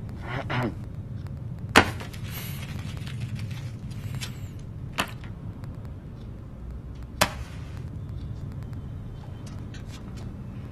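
Steady low hum of room or background ambience, broken by three sharp clicks about two, five and seven seconds in, the first the loudest.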